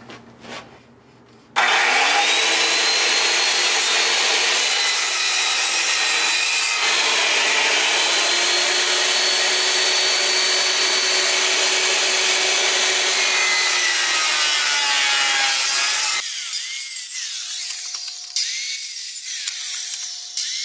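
Corded circular saw starting about a second and a half in and cutting steadily through pallet deck boards for about fourteen seconds, a loud rasping noise with a whine on top. The blade is set shallow, about half a tooth above the board. Near the end the cut stops and a lighter, uneven sound follows.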